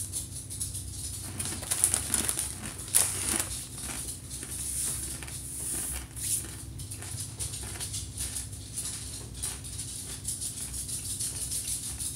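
Irregular crisp crunching from chewing a mouthful of dry, uncooked ramen-style noodle snack.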